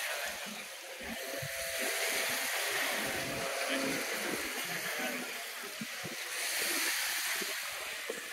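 Wind buffeting the microphone over a steady rushing hiss of surf.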